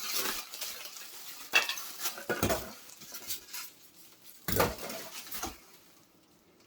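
Packaging being handled and opened by hand: a run of short scrapes, rustles and knocks that stops about six seconds in.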